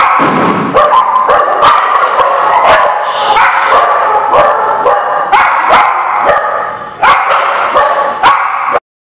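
Dogs barking and yipping in a rapid, almost unbroken string of high barks, several a second, which cuts off suddenly near the end.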